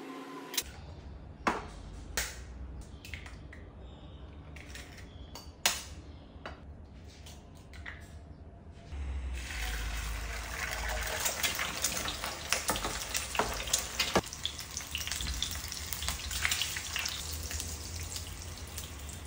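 Kitchen knife slicing a block of canned luncheon meat on a plastic cutting board, with scattered sharp taps of the blade on the board. About nine seconds in, eggs poured into hot oil in a nonstick pan start sizzling, and the frying goes on steadily with small crackles.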